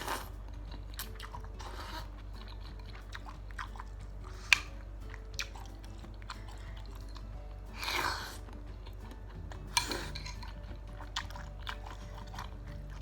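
Close-miked eating of chicken noodles and meatballs: chewing and mouth sounds with scattered small clicks, a sharp click about four and a half seconds in, and a few short louder noisy smacks, over soft background music.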